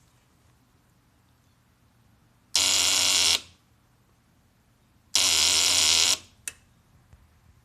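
2005 Kawasaki Ninja 250's electric starting system buzzing instead of cranking the engine, twice, each buzz about a second long, with a short click just after the second. The engine does not turn over although the battery is fully charged.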